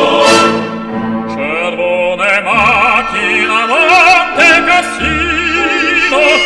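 Music: a classically trained singing voice with wide vibrato, in operatic style, over sustained instrumental accompaniment.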